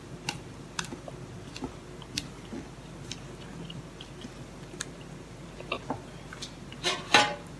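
Wooden spoon stirring thick banana cake batter in a stainless-steel saucepan: soft wet scraping with irregular light taps of the spoon against the pan. A louder rustle and clatter comes near the end.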